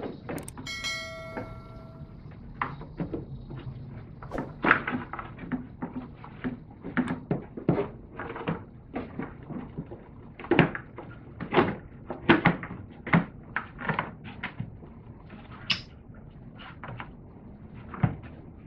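Plastic air box cover of a Chevy Impala's air filter housing being worked back into place by hand: a string of irregular plastic knocks, clicks and rattles as it is pushed and seated, loudest a little past the middle.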